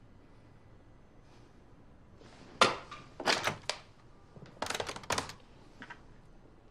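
Corded desk telephone being handled: a sharp knock about two and a half seconds in as the handset is lifted, then two quick clusters of clicks as its keypad buttons are pressed.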